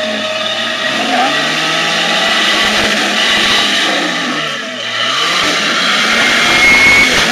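Lifted 4x4's engine revving under load as it climbs a rock ledge. The pitch rises, dips about four and a half seconds in, then climbs again.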